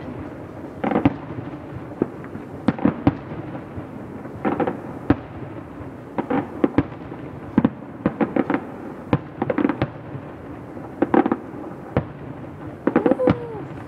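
Aerial fireworks shells bursting: a run of sharp bangs at uneven intervals, often two to four in quick succession, with short gaps between clusters.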